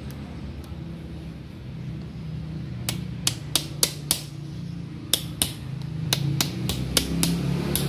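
Sharp metallic taps, about fourteen in two quick irregular runs starting about three seconds in: a hammer tapping the inner CV joint's tripod spider down onto the splined driveshaft.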